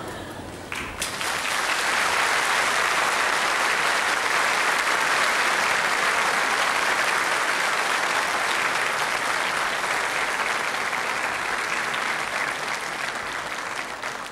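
Audience applauding: the clapping swells about a second in, holds steady, and begins to die away near the end.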